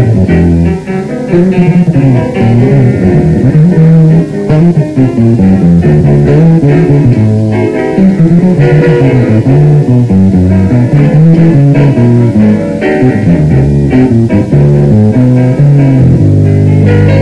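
Acoustic double bass plucked in a prominent melodic line, with jazz piano chords alongside.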